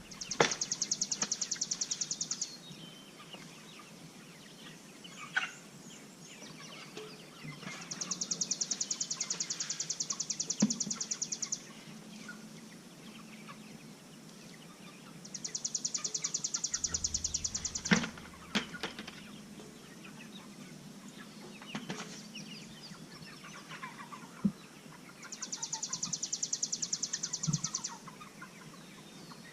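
A high, fast trill repeated four times, each lasting two to four seconds and about eight seconds apart, with a few sharp knocks in between.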